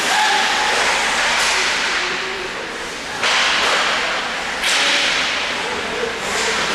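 Hockey skate blades scraping on the ice. Sharp scrapes start suddenly about three and four and a half seconds in, each fading away over a second or so.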